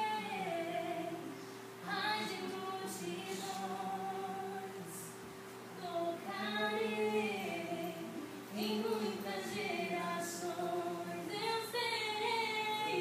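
Background music: female voices singing in slow phrases over a steady held note.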